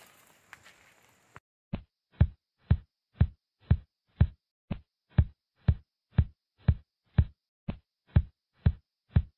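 Heartbeat sound effect: a steady run of deep thumps, about two a second, starting about a second and a half in after a near-quiet start.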